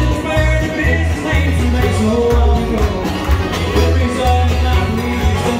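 Live bluegrass band playing, fiddle among the instruments, over a steady repeating bass line.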